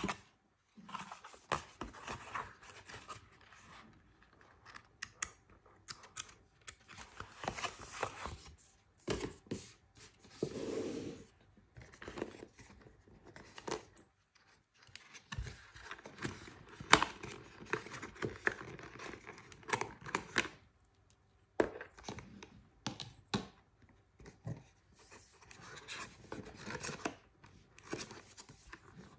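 Unboxing handling noises: paper and cardboard packaging being handled, with a coiled charging cable lifted out of the box, in irregular rustles, scrapes and taps.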